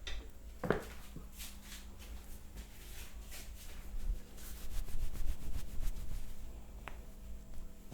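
Hands rubbing and stroking over skin and hair during a head and back massage, with a short sharp tap about a second in.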